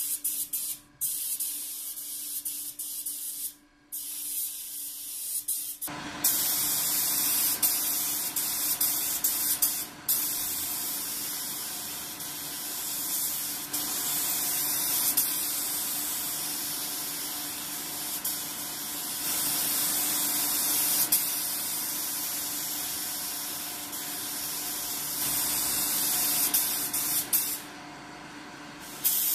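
DeVilbiss GTi Pro spray gun hissing steadily as compressed air atomises blue base coat. It stops briefly a few times, and for over a second near the end. About six seconds in the hiss becomes louder and fuller, with a steady hum under it.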